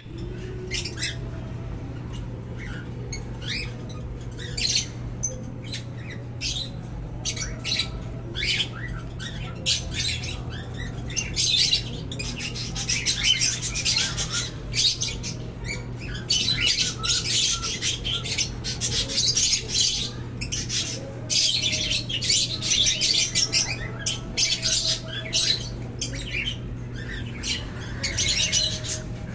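Cockatiel chicks giving harsh, hissy begging squawks over and over during handfeeding, coming in dense runs, over a steady low hum.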